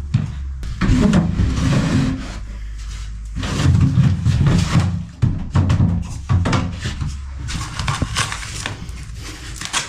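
Background music with scattered knocks and clattering over it.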